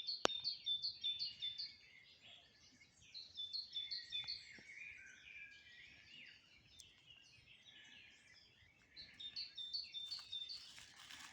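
Small birds chirping and twittering in quick repeated bursts, in three spells with quieter gaps between. A sharp click comes just after the start, and a broad hiss joins near the end.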